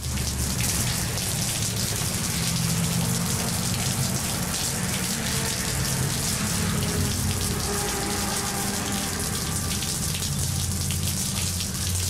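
Steady rain falling on pavement, with a low rumble of passing traffic underneath.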